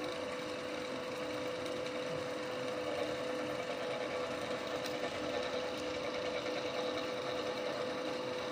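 Metal lathe's motor running steadily, a constant hum with no change in speed.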